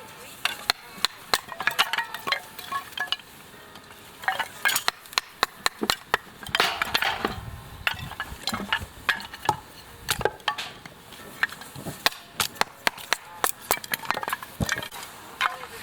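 Irregular clinks and knocks of metal cookware and utensils, with no steady rhythm.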